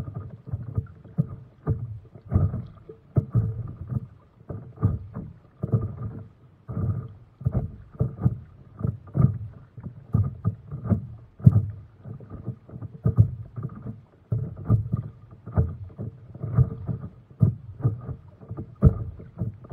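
Water splashing and lapping against the hull of a stand-up paddleboard as it is paddled along, in uneven dull splashes about once or twice a second.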